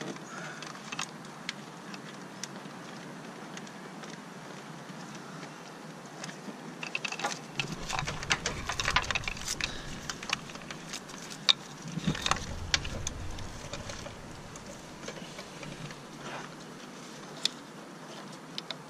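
A car wiring loom and its plastic connectors being handled and pushed into place in an engine bay: scattered light clicks and rustling. It gets busier through the middle, with a few low bumps and one sharp click.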